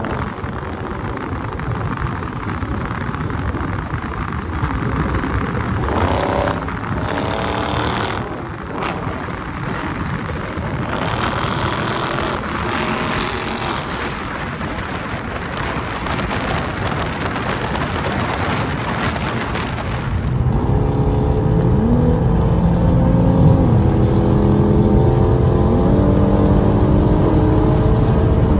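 Cabin noise of a 2023 Dodge Charger R/T under way, its 5.7-litre HEMI V8 and the road noise running steadily. About twenty seconds in the sound grows louder and a set of steady tones that step up and down in pitch joins it.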